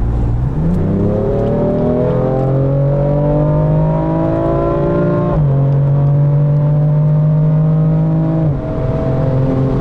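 BMW M car engine under hard acceleration, heard inside the cabin with the windows up: the revs climb steadily for about five seconds, drop suddenly at a quick upshift, then climb again until another drop near the end.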